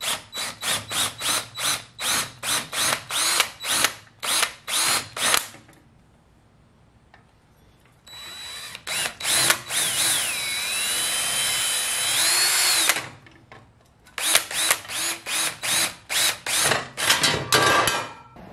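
Cordless drill drilling out pop rivets in a tiller's sheet-metal fender. It starts with quick short bursts of the trigger, about three a second, then pauses. A steady run of about five seconds follows, its pitch dipping and recovering as the bit bites, then more quick bursts near the end.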